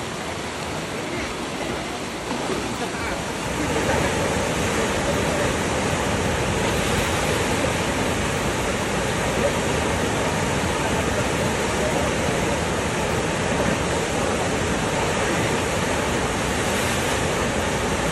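Steady rush of whitewater from a standing river wave, growing louder about four seconds in.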